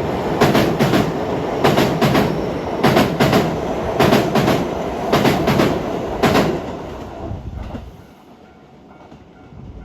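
A train passing, its wheels clacking over rail joints in pairs about every second. The run of rolling noise and clacks dies away about seven to eight seconds in.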